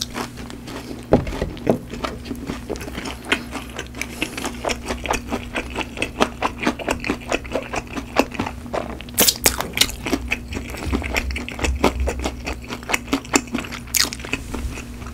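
Close-miked chewing of crispy seasoned fried chicken, with rapid crunches several times a second. The loudest bites come about a second in.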